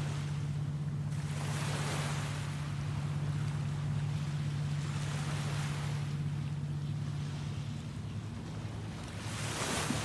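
Small ocean waves washing onto a sandy beach, each wash swelling up and fading, three times, over a steady low hum.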